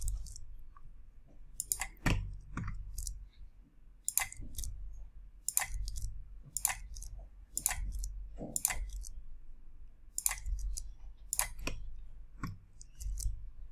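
Clicks of a computer mouse and keyboard while editing a 3D model, sharp single and paired clicks at an uneven pace, about one every half-second to second.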